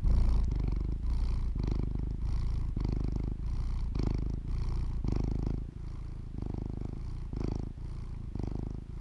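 Domestic cat purring, in even low pulses a little under two a second, somewhat softer from about halfway.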